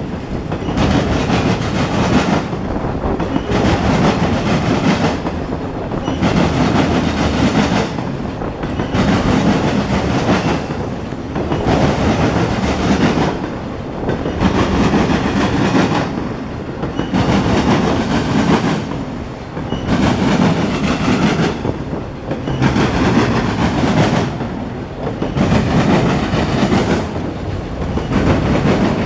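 Freight train of multilevel autorack cars rolling past close by, its wheels clattering on the rails. The noise swells and dips in a regular cycle about every two and a half seconds as each car goes by.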